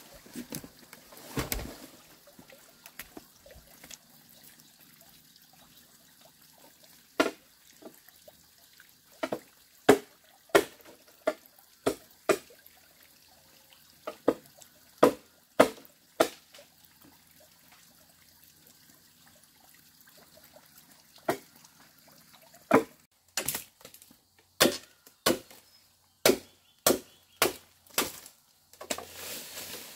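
Machete chopping at a felled bamboo pole: sharp single knocks in irregular runs of quick strikes, over twenty in all, with two longer pauses.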